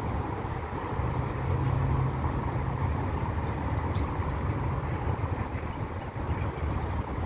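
Road traffic rumbling steadily, with one engine's low hum standing out between about one and two seconds in.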